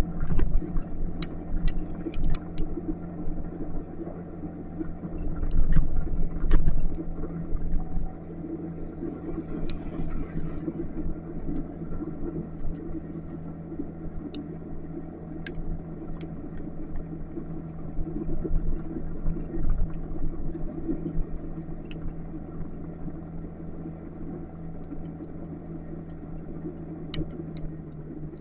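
Motorcycle running steadily on the road, its engine a constant hum under a low rumble that is heavier for the first eight seconds or so. Scattered sharp ticks sound throughout.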